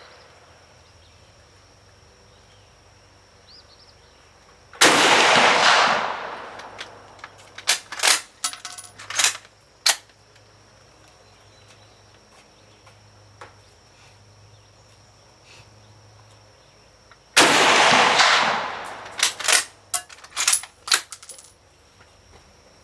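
Two rifle shots from a Finnish M91 Sestroyetsk Mosin-Nagant in 7.62×54R, about twelve seconds apart, each echoing for about a second. After each shot comes a quick run of sharp metallic clicks, the bolt being worked to eject the case and chamber the next round.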